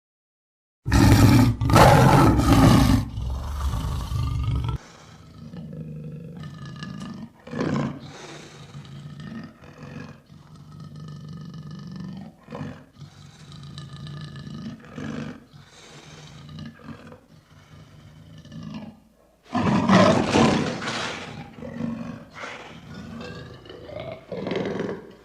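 Lion roaring. A loud roar about a second in lasts some four seconds, followed by a run of shorter, quieter calls, with a second loud roar starting a little before three quarters of the way through.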